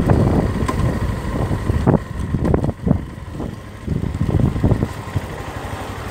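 Bashan Storm 250cc dual-sport motorcycle engine running through an exhaust with its catalytic converter removed, its sound rising and falling a few times, with a couple of short knocks.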